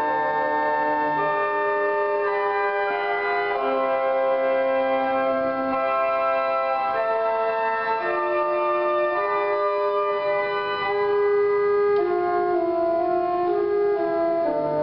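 Church pipe organ played in held, sustained chords that move to new chords every second or so, at a steady level.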